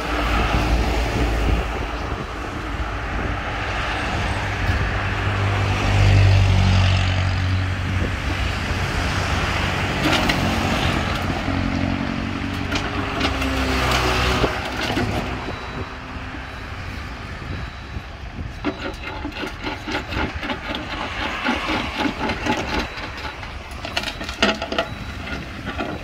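Small diesel engine of a crawler mini excavator running and changing pitch under load as it works its hydraulics and moves. In the second half, a run of irregular clanks and knocks as its steel tracks come down the steel loading ramps.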